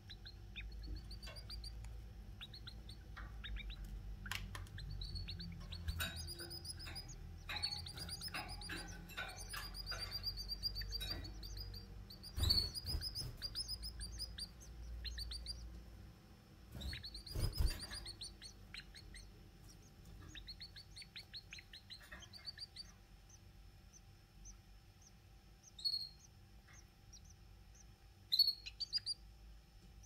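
Canary nestlings begging for food as a parent feeds them: bursts of rapid, high-pitched cheeps, busiest in the first half and sparse near the end. Two dull knocks stand out, about twelve and seventeen seconds in.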